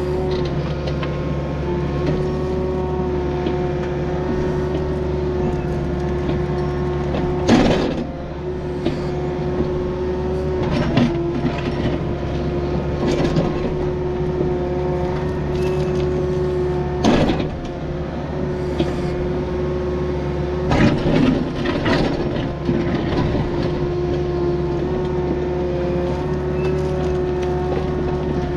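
Takeuchi excavator's diesel engine running steadily while it digs a ditch, with three loud clanks of the bucket, about a third of the way in, a little past halfway and near the end.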